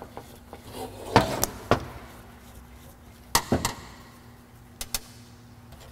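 Small sharp metal clicks and taps as screws are taken off a carburetor's top and set down on the workbench: three about a second in, two more about halfway through, and a quick pair near the end.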